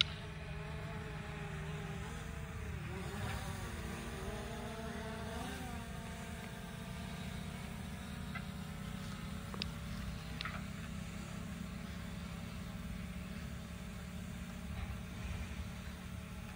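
A DJI Mini 3 Pro quadcopter's propellers humming as it hovers and manoeuvres. The pitch wavers up and down for the first few seconds, then holds steady.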